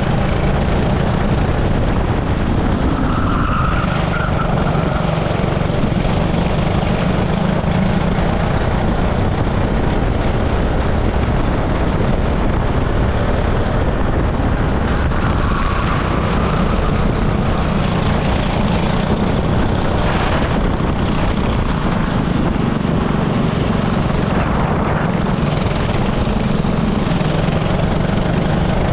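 18 hp super kart's engine running under way, heard from a camera mounted on the kart, its note staying fairly steady with only small rises and falls.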